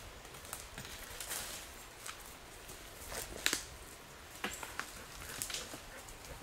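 A man's footsteps and a dog's paws on leaf litter and twigs of a forest floor: a scattered run of light cracks and rustles, the sharpest about three and a half seconds in.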